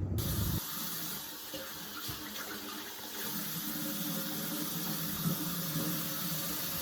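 Tap water running steadily, a little stronger from about three seconds in.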